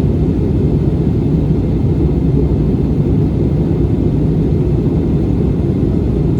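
Steady low drone inside an airliner cabin in flight: engine and airflow noise, even throughout.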